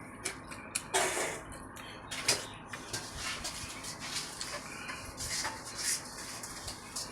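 Clinks and scrapes of a plate and utensils during a meal of fish and rice, with two louder scraping sounds about one and two seconds in.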